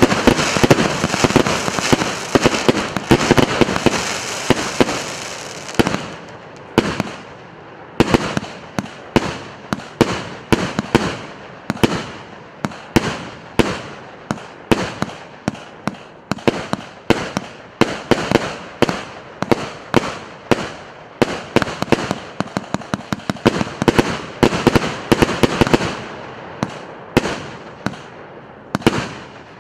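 PC890 multi-shot firework battery firing: a dense run of overlapping bangs and crackle for about the first six seconds, then a steady string of separate shots, a couple a second, each trailing off with a short echo.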